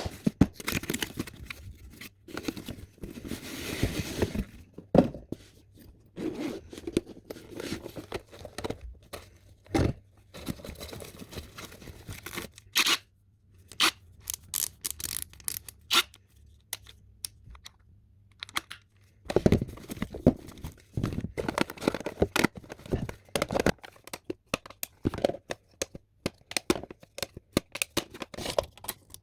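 Cardboard and plastic packaging being torn open and handled while a cordless drill is unboxed. There is tearing and crinkling, with many sharp clicks and knocks coming thick and fast in the last third.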